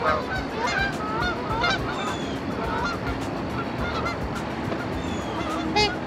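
A flock of geese honking as they come in to land on the water: many short, overlapping honks, thick in the first couple of seconds and thinning out after, with one louder honk near the end.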